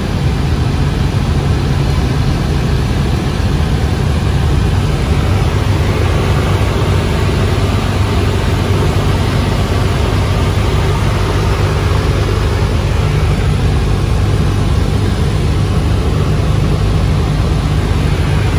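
Steady drone of a Cessna 172's piston engine and propeller in cruise, heard inside the cabin, a low even hum with no change in pitch.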